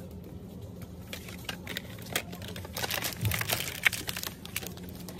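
Wrapped bars of soap rustling and knocking together as they are grabbed off a wire store shelf, in quick crinkly handling with one sharp click near four seconds in, over a steady low hum.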